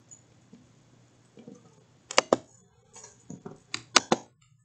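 Computer mouse clicking a few times, sharp short clicks in two groups: a pair about two seconds in and three more just before four seconds.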